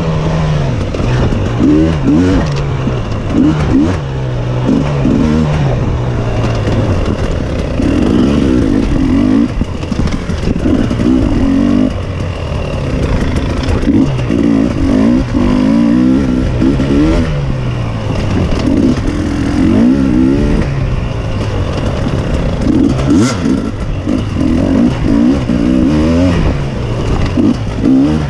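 Off-road racing engine revving up and down over and over as the throttle is opened and closed, rising and falling every second or two.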